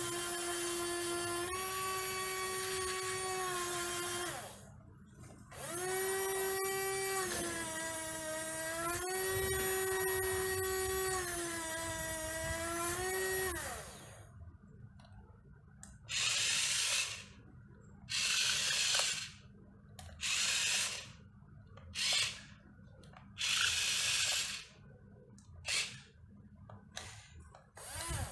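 Aohai RC toy excavator's small electric geared motors working. First comes a whining hum that rises and falls in pitch as the arm and bucket move, breaking off briefly once. It stops about 13 seconds in, and then about seven short buzzing runs follow with pauses between, as the machine drives and turns in stops and starts.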